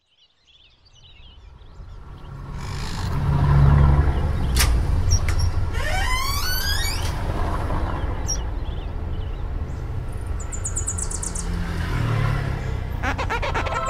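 Town street ambience fading in: a steady low traffic rumble, with bird chirps and a rising whistle-like glide about halfway through. Music with keyboard tones comes in near the end.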